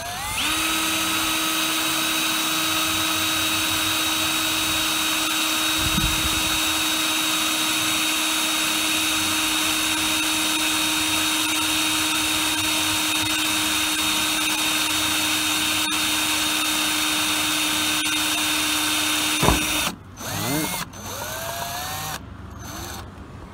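Electric drill with a tiny bit drilling through the screw hole of an amber cab-light lens into a truck's roof: a steady, loud whine that spins up at the start, runs for about nineteen seconds and stops. It is followed by a few short trigger bursts that spin up and wind down.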